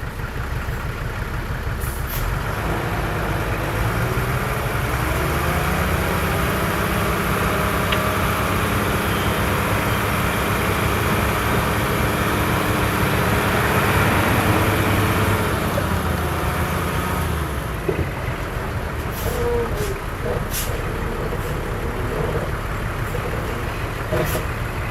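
Heavy diesel engine of earthmoving machinery working under load. It rises in pitch over the first few seconds, runs hardest a little past the middle, then drops back toward idle, with a few short sharp knocks near the end.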